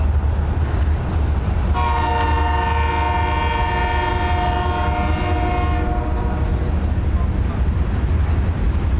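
A horn sounds one long steady blast of about four seconds, starting about two seconds in, over a steady low rumble.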